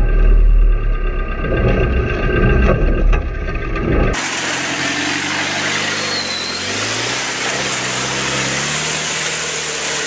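Off-road 4x4 truck's engine at work climbing a muddy bank. For the first four seconds it is a heavy, muffled low rumble with knocks. Then it is clearer, revving up and down with rising and falling pitch over a steady hiss.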